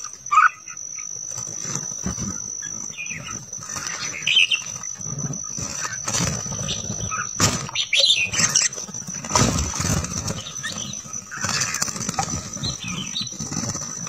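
Red-whiskered bulbuls chirping as they bathe, with short splashes and wing-flutters in shallow water. A steady high-pitched tone sounds underneath until about halfway.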